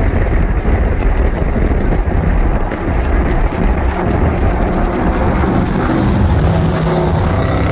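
Steady loud rumble of road and wind noise from a vehicle driving at highway speed, with a lifted pickup truck close alongside.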